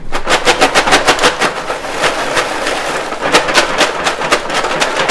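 Popped popcorn rattling inside a lidded aluminium foil tray as it is shaken hard back and forth to coat it with salt and melted butter. Rapid rattling and foil crinkling, many shakes a second, easing slightly in the middle.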